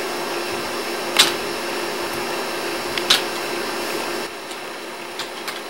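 A steady hum with a few short, sharp clicks or puffs. The hum drops away about four seconds in.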